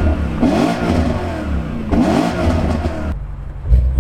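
Car engine revving hard in repeated pulls, its pitch rising and falling. The sound cuts off sharply about three seconds in and then surges again near the end.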